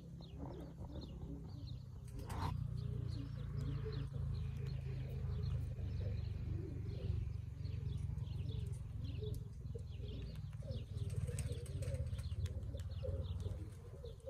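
Pigeons cooing repeatedly, with small high chirps from other birds and a steady low rumble beneath.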